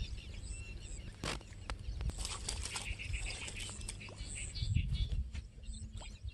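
Outdoor ambience: birds chirping faintly over a low wind rumble on the microphone, with one sharp click about a second in.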